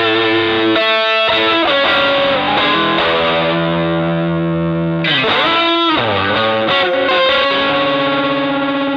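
Electric guitar played through an MXR Dynacomp compressor pedal: held notes and chords, the pitch dipping and coming back twice about five and six seconds in, then a long sustained note near the end.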